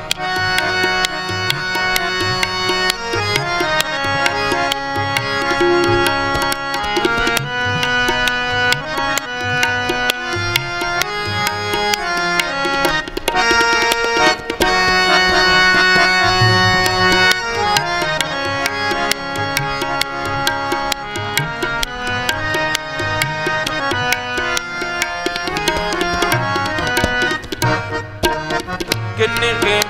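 Instrumental kirtan interlude: Yamuna harmoniums play a melody of held reed notes over a steady tabla rhythm, with no singing.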